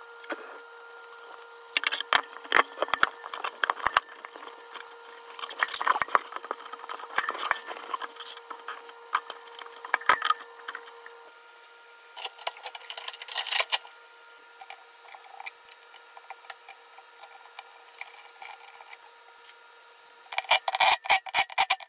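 Clinks and rubbing of metal parts being handled: a steel shaft slid through a V-belt pulley and a flange bearing. The noise comes in several short bursts, over a faint steady hum that stops about halfway through.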